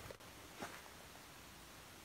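Near silence: a faint steady outdoor hiss, with a soft footstep in snow about half a second in.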